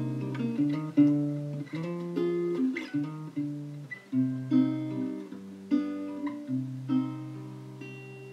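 Plucked acoustic guitar passage of a song, with a lower bass line, played back through a DIY electrostatic wire-tweeter speaker panel under test. The notes die away near the end.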